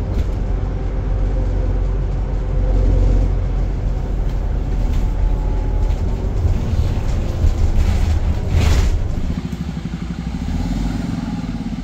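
Bus engine running under way. About nine seconds in, after a short loud noise, it settles to a lower, evenly throbbing sound, like an engine dropping to idle.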